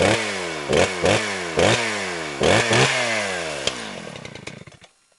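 Small gasoline engine revved in about six sharp blips, its pitch dropping after each one. It then winds down in pitch and loudness and stops.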